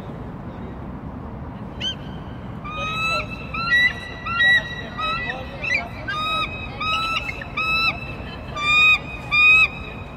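Bald eagle calling: a long series of short, high, piping notes, each flicking upward at its end, starting about two seconds in and running nearly to the end, the last few the loudest.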